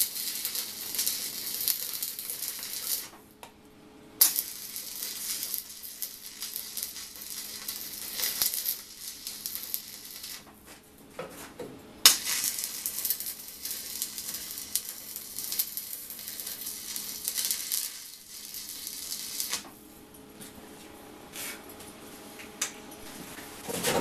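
Electric arc welding on a steel pipe, a dense crackling sizzle from the arc. It comes in three runs, with short breaks about 3 s and 10 s in, and stops about 19 s in.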